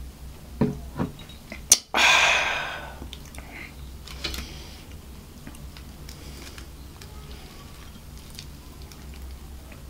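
A few light knocks of a glass being handled on a wooden table, the sharpest about two seconds in. Then a loud breathy exhale after a drink, fading over about a second. After that, only faint clicks and rustles as a piece of fried chicken is picked up.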